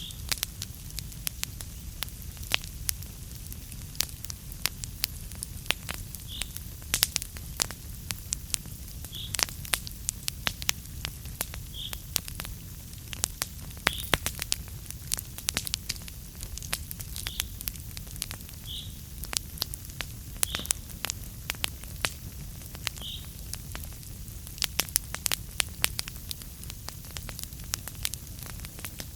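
Wood fire burning in a fireplace: frequent sharp crackles and pops over a steady low rumble of the flames, with a few short high-pitched squeaks now and then.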